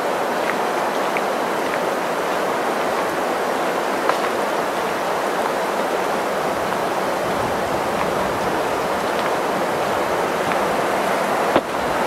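Steady rain falling: an even hiss, with a few light clicks of drops, once about four seconds in and again near the end.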